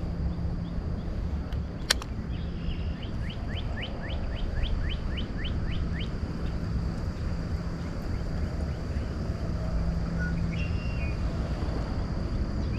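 A bird singing a quick run of short rising chirps, about three or four a second, for a few seconds, with a few more chirps later, over a steady low hum. A single sharp click comes about two seconds in.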